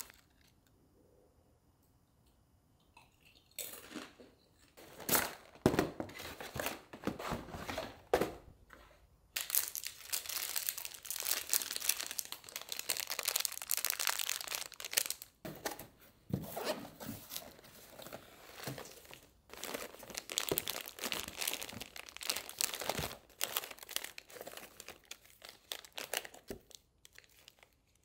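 Plastic snack wrappers crinkling and being torn open by hand, in irregular bursts that start a few seconds in.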